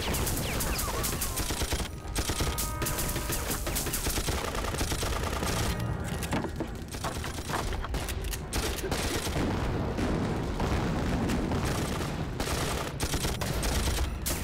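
Heavy, continuous battle gunfire: many guns firing at once, with rapid machine-gun fire among the shots.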